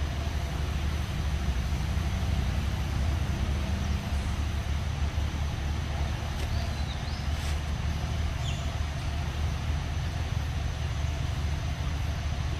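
Steady low outdoor rumble with an even hiss over it, and a few faint short chirps around the middle.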